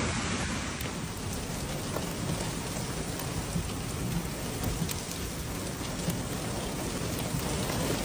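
Steady rain falling, an even hiss with scattered sharp drop impacts.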